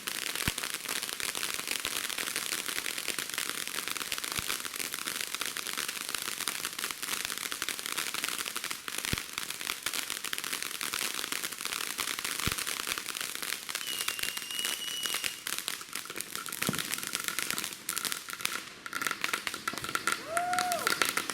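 Consumer fireworks giving off a dense, continuous crackle, with a few sharper single pops mixed in.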